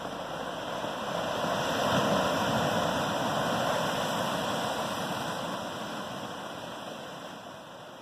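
Atlantic surf breaking on a rocky shore: a rushing wash of white water that swells about a second in, peaks around two seconds, then slowly dies away.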